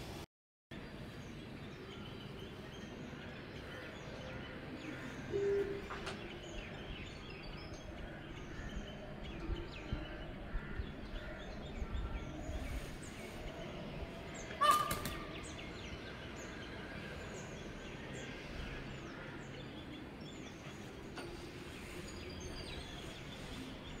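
Outdoor bird ambience: scattered high chirps and short calls from small birds over a steady background hum, around a group of peafowl. One brief, louder bird call stands out about fifteen seconds in.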